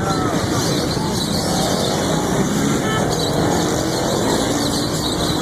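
Steady street noise: road traffic running past in a busy urban setting.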